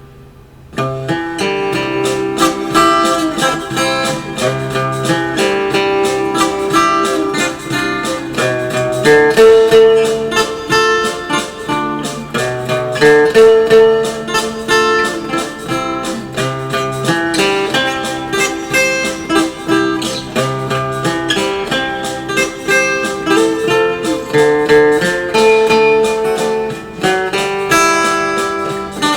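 Background music: a plucked acoustic guitar playing a quick, busy melody, coming in about a second in after a brief drop.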